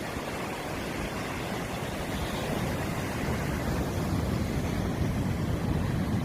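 Wind buffeting the microphone in a low rumble over the steady wash of sea surf, growing slightly louder toward the end.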